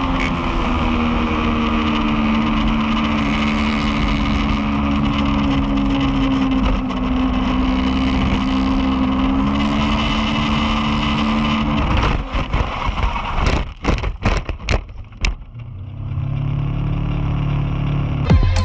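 Sport motorcycle engine running at a steady high speed on a race track, then cutting out about twelve seconds in, followed by a string of knocks and scrapes as the motorcycle crashes and tumbles; a low rumble sets in near the end.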